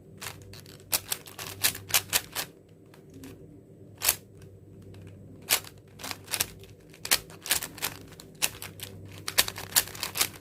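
A 4x4 Rubik's cube being turned by hand: its plastic layers click and clack in quick, irregular runs of turns, with short pauses between runs. These are the final turns that solve the cube.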